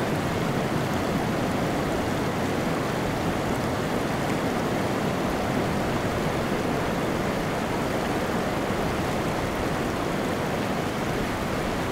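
Shallow creek running over beach cobbles, a steady watery rush, with ocean surf behind it.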